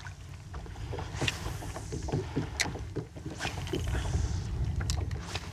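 Handling noises aboard a fishing kayak: scattered sharp clicks and knocks and two short swishes, over a steady low wind rumble on the microphone.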